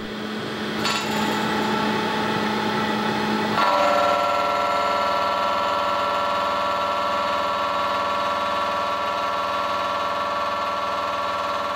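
Robot-held PushCorp Servo Weld Shaver milling head running and shaving down the weld reinforcement on a steel spiral-welded pipe: a steady machine whine that builds over the first second, then changes tone and gets a little louder about three and a half seconds in.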